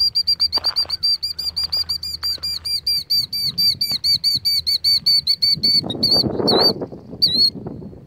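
Killdeer giving its alarm call: a rapid trill of high, thin notes, about seven a second, breaking into a few separate calls near the end. The alarm goes with its broken-wing distraction display at an intruder near its nest. A louder rushing noise swells about six seconds in.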